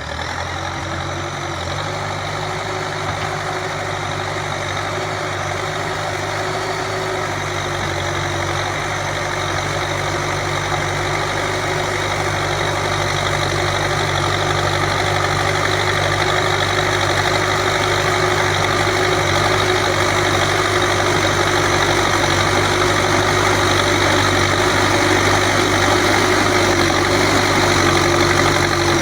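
Backhoe loader's diesel engine running steadily, growing gradually louder.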